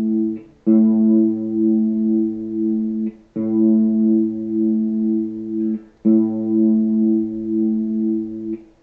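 A guitar's open A string in standard tuning, plucked three times about every two and a half seconds. Each low A rings steadily and is then cut off short before the next, as a reference pitch for tuning that string.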